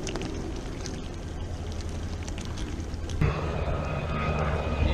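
A motor's low, steady rumble, joined about three seconds in by a louder hum that switches on suddenly.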